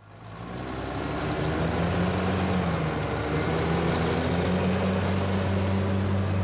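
Large diesel engine of an old Steiger four-wheel-drive tractor running steadily under load as it tows loaded earthmoving scrapers, fading in over the first second or so.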